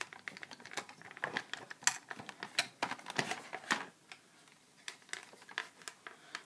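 Buzz Bee Panther plastic toy dart blaster being handled: a run of small, irregular plastic clicks and taps, with a short lull about four seconds in.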